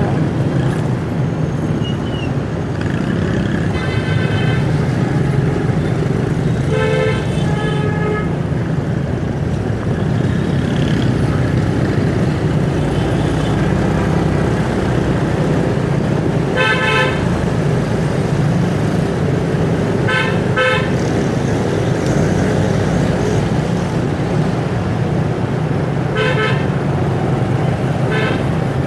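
City street traffic: a steady engine and road rumble, with vehicle horns giving several short honks, one of them a quick double toot.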